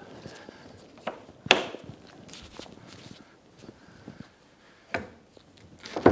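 Outboard motor cowling being seated and latched: a few sharp knocks and clicks over low handling noise, the loudest about one and a half seconds in, two more near the end as the cowl latch is pressed shut.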